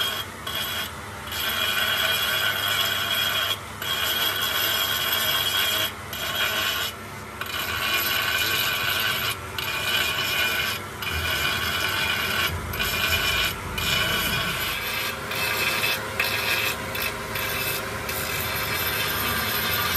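Abrasive grinding wheel on a power tool grinding the broken edge of a tractor's cast-iron engine block: a steady rasping grind with a high motor whine, broken by brief dips as the wheel lifts off the metal.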